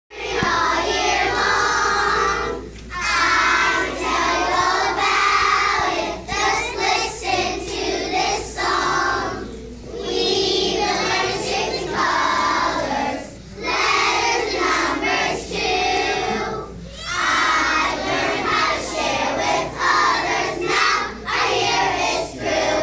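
A group of young children singing a song together, in phrases a few seconds long with short breaths between; the song ends near the end.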